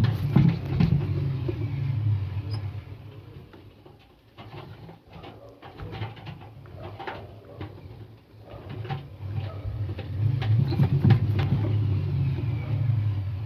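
Indesit appliance running and squeaking, with a low hum and a rattle of clicks, loud for the first few seconds, quieter in the middle, then loud again near the end. The squeak is an unexplained fault.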